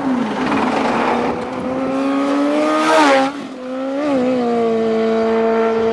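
Sport motorcycle engine at high speed, its pitch climbing as it approaches and passes close about three seconds in with a rush of air, then dropping suddenly. After a short blip of the throttle it holds a steady note as it rides away.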